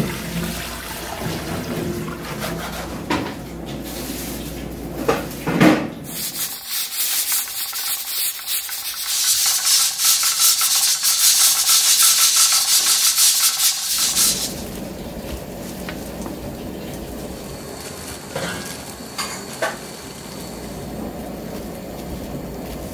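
A pressure cooker on a gas burner hissing steam from its valve: a loud, steady hiss lasting about seven seconds. Before it there are a few knocks and clatter of pots; after it, softer handling sounds.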